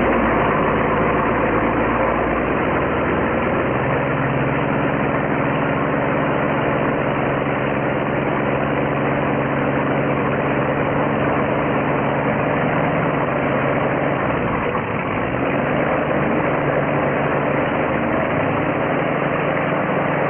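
Small radial aircraft engine running steadily, a continuous low engine note whose pitch shifts a few times.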